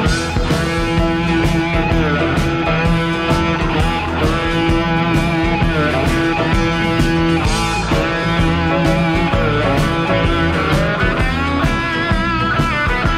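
A rock'n'roll band playing an instrumental break without vocals: a lead electric guitar with bent notes over steady drums and bass.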